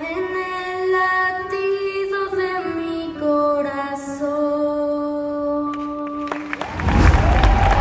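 A woman singing long held notes, the close of a song in a live theatre performance. About six and a half seconds in the singing stops and the audience breaks into loud applause.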